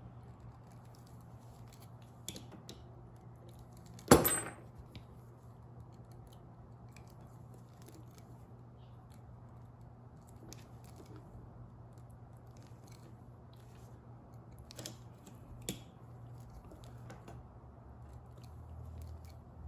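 Copper wires being twisted together by hand: scattered faint clicks and scrapes of wire and tool handling, with one loud sharp metallic click about four seconds in, over a steady low hum.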